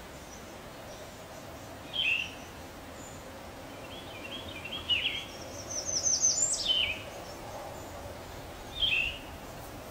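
Oriole calling: short notes sliding down in pitch, four times, about two to three seconds apart, the third led by a quick run of higher notes. Steady background noise underneath.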